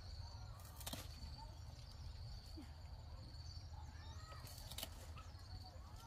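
Faint outdoor ambience with scattered short bird calls over a low rumble and a steady high-pitched tone, with two sharp clicks, about a second in and just before the five-second mark.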